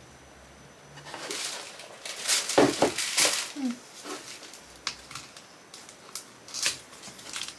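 Small cardboard product carton being handled and pulled open by hand: rustling and scraping, followed by a few sharp clicks.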